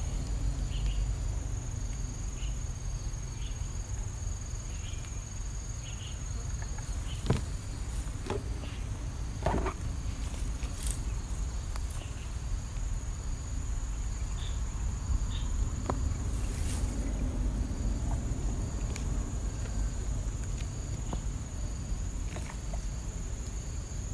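Insects calling: a continuous high-pitched drone with a fainter chirp repeating at a regular pace beneath it, over a low rumble, with a few brief knocks scattered through.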